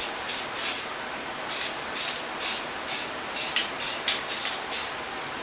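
Aerosol can of etching primer sprayed in short, repeated hissing bursts, roughly two a second, over a steady background hiss.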